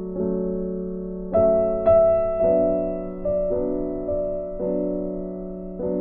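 Background piano music: slow, gentle notes and chords struck every second or so, each ringing and fading.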